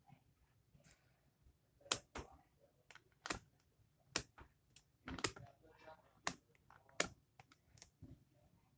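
A series of sharp clicks and knocks from small hard objects being handled, about seven strong ones at irregular spacing starting about two seconds in, with fainter taps between them.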